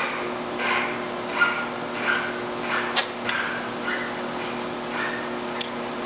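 Small metal parts of a mechanical diesel injector being handled and taken apart by hand, giving a few sharp metallic clicks and soft handling noises, over a steady low shop hum.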